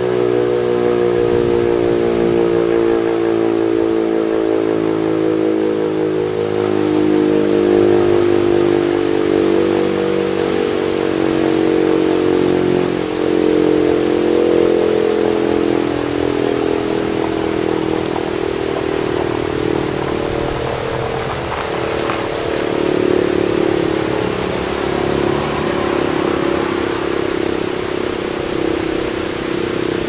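Super Sirex outdoor warning siren sounding a steady tone on a monthly test. The pitch sags slightly in the first few seconds, then holds, and the loudness swells and fades every several seconds.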